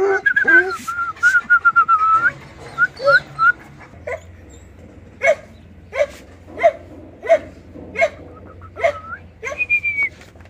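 Dog whining in a run of short high-pitched notes for about the first two seconds, then barking repeatedly, about one bark every two-thirds of a second, with a brief high whine near the end.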